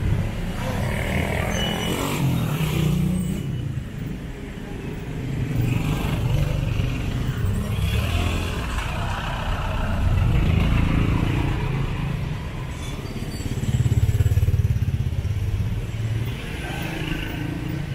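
Street traffic passing close by: motorcycles, a jeepney and vans running past, their engine rumble swelling and fading in turn, loudest for about two seconds about three quarters of the way through.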